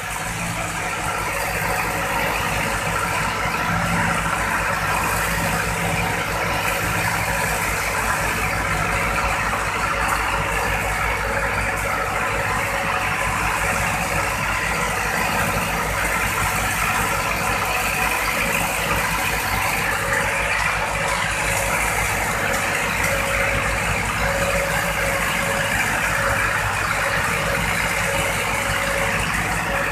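A fishing boat's engine running steadily while the boat is under way.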